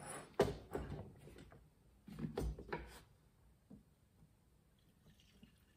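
Plastic gas can being handled and its spout knocked into a chainsaw's fuel filler: clunks and rattles in the first second and again about two to three seconds in. After that it goes quieter while fuel pours into the tank.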